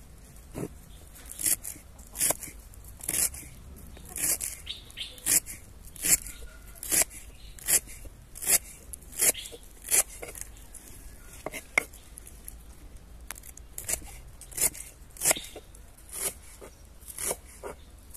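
A kitchen knife chopping through a bundle of fresh leafy wild-green stems on a wooden cutting board, in crisp, even cuts about once a second, with a brief pause partway through.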